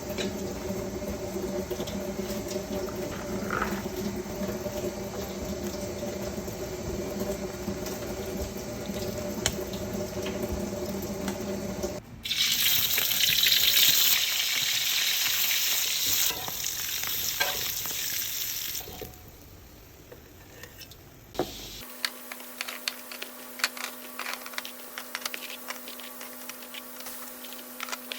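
Kitchen cooking sounds in several cuts. First a steady hum with background noise. About twelve seconds in comes a loud steady hiss lasting several seconds. After a quieter stretch, scattered light clicks and taps over a low hum follow.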